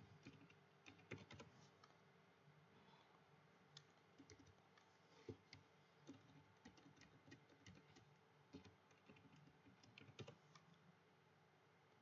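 Faint typing on a computer keyboard: irregular runs of soft key clicks as formulas are entered into a spreadsheet, dying away near the end, over a faint steady hum.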